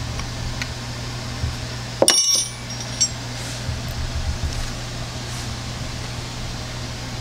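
A steel wrench gives one sharp, ringing metallic clink about two seconds in, then a smaller click a second later and light knocks of handling, as the distributor hold-down clamp is snugged. A steady low hum runs underneath.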